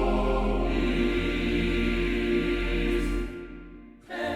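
Music with sustained, choir-like voices holding long notes, fading out about three seconds in.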